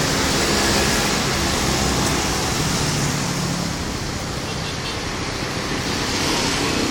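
Road traffic: vehicle engines running with a steady wash of road noise and a low engine hum, swelling slightly about three seconds in.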